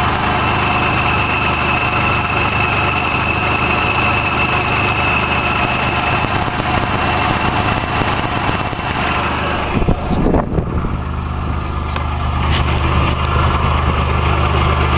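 Nissan Hardbody's VG30i 3.0-litre V6 idling warm, a steady hum. About ten seconds in there is a brief rustle, and the sound turns deeper and duller.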